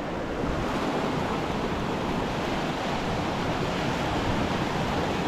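Steady rushing of a swollen, fast-flowing river current, with some wind on the microphone.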